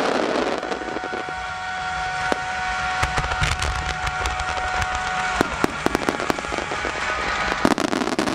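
Fireworks display at full barrage: many aerial shells bursting at once with dense crackling, and deeper booms about three to four seconds in.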